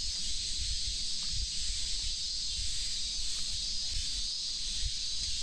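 Steady high-pitched drone of cicadas in chorus, with soft low thumps and rumble underneath.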